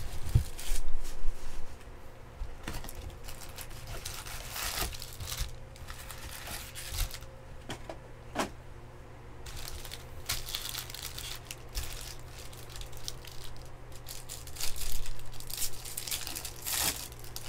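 Foil wrappers of Bowman baseball card packs crinkling as the packs are lifted from the box and handled, with a louder stretch of tearing and rustling near the end as a pack is ripped open.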